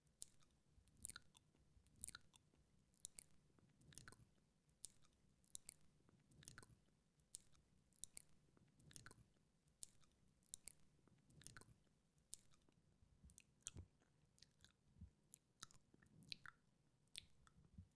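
Quiet, close-miked wet mouth sounds: irregular smacking and clicking of lips and tongue, several clicks a second, over soft low swells.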